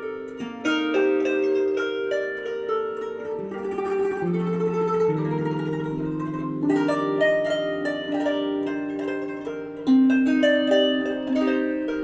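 Kanun (Turkish plucked zither) recital music played back through an Alpine 7893R car head unit and a Kenwood KAC-PS500F amplifier and speakers: melodic plucked notes, with a stretch of fast tremolo plucking about four seconds in.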